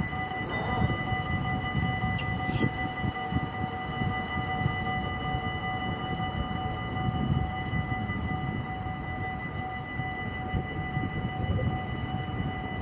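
Dutch level-crossing warning bell ringing steadily while the crossing barriers lower, signalling that a train is approaching, over a low rumble of background noise.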